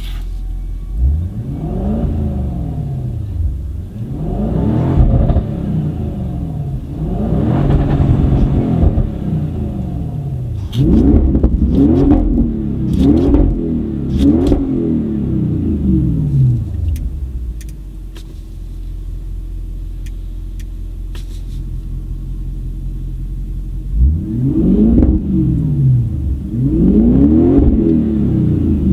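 Audi RS6 Performance's 4.0 TFSI twin-turbo V8 through an Akrapovic exhaust, revved in a series of blips that rise and fall back, with a few sharp cracks as the revs drop. It settles to a steady idle for several seconds in the middle, then is blipped again near the end.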